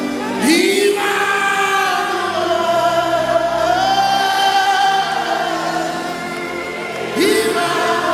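Live gospel worship music: a group of voices singing long held notes over sustained accompaniment, with an upward swoop about half a second in and again near the end.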